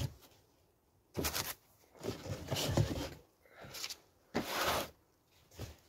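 Cardboard box and its paper packing being handled, rustling and scraping in several short bursts.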